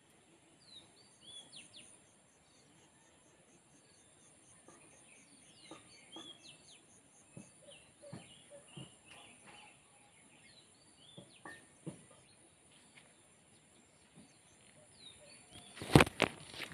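Small birds chirping in short, scattered calls over a steady high insect drone. Near the end comes a brief cluster of loud crackles and knocks, as of foliage brushing against the phone.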